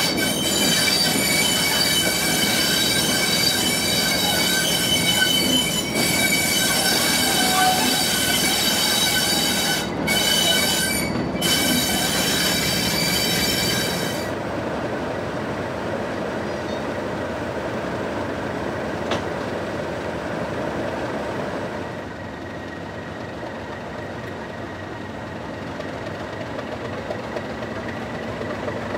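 English Electric 12-cylinder diesel of a Class 37 locomotive running at a standstill, its turbocharger giving the loud, high-pitched whistle these engines are known for. About fourteen seconds in the whistle drops away, leaving a quieter, steady engine idle.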